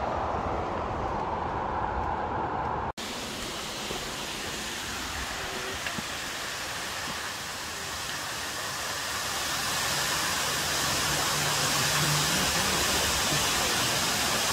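Steady rush of falling water, with a brief dropout about three seconds in and the rush growing louder from about ten seconds in.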